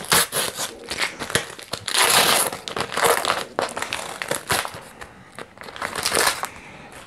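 Wrapper of a Panini sticker-and-card pack crinkling as it is opened and handled, in irregular crackly bursts, loudest about two seconds in and again near the end.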